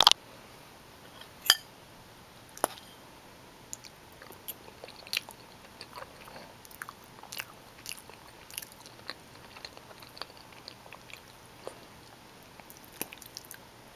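Close-up mouth sounds of a person chewing bowtie pasta in tomato sauce with spicy Italian sausage: soft wet smacks and clicks, a few louder ones in the first three seconds.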